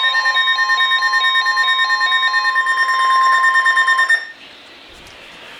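Emergency Alert System alarm: a steady single-pitch attention tone, with other alarm tones stepping up and down between two pitches over it. It cuts off about four seconds in, leaving faint hiss.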